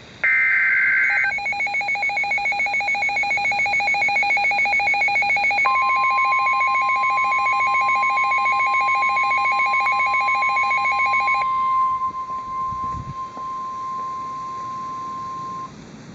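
Emergency Alert System tones from a weather alert radio. A brief two-pitch SAME data burst warbles at the start, then the radio's rapid electronic alert beeping begins. About five and a half seconds in, the National Weather Service's steady warning alarm tone joins it and keeps sounding for several seconds after the beeping stops, signalling a warning-level alert.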